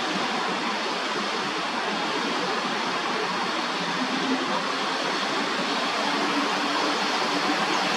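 Steady rushing noise of city traffic heard across a park, with a faint low engine hum coming in about halfway through and growing slightly louder near the end.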